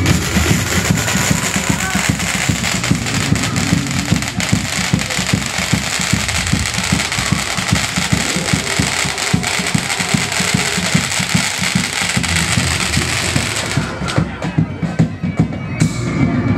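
Street-parade drumming under a loud, steady hiss that cuts off suddenly about fourteen seconds in.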